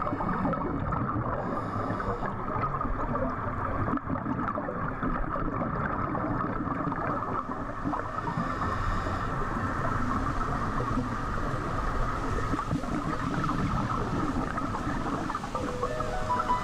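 Underwater ambience picked up by a diver's camera: a steady rushing, gurgling noise from scuba exhaust bubbles and the water around the housing.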